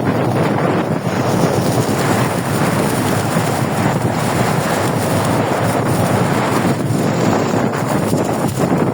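Wind buffeting the microphone aboard a moving boat, a steady loud rush with the boat's running and water noise underneath.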